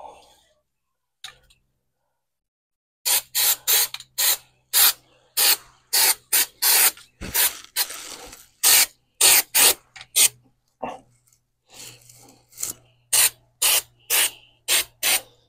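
Undercoating being sprayed in quick short bursts, about two a second, starting about three seconds in, with one longer spray near the middle. A low steady hum runs beneath the spraying.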